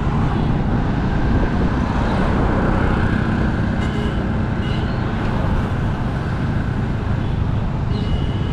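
Steady city road traffic heard from a moving car, a dense low rumble of engines and tyres. A few short, faint horn beeps sound around the middle and again near the end.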